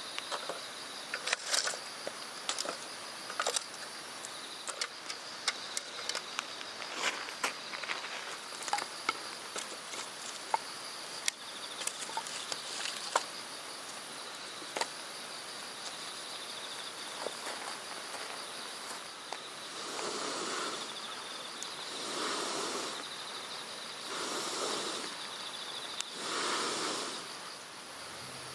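Crickets and other night insects trilling steadily in high, even tones. Scattered sharp clicks sound through the first half, and near the end come four whooshing swells about two seconds apart.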